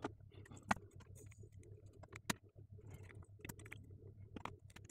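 Faint small clicks and metallic taps of a soldering iron and tweezers against a circuit board during desoldering, three of them sharper than the rest, over a low steady hum.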